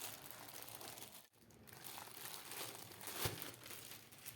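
Packaging crinkling and rustling faintly as a keyboard is unwrapped and handled, with a soft knock about three seconds in.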